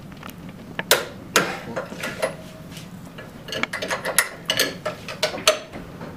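Sharp metal clicks and clinks of a torque wrench and a hand wrench on a flange's bolts and nuts as the bolt torque is re-checked. A few come in the first couple of seconds, then a quicker run of them midway through. The torque check is to find how much bolt torque the gasket has lost to creep relaxation.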